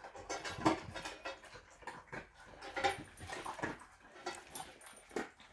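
German Shepherd eating dry pet food: irregular crunching and clicking from the food and bowl.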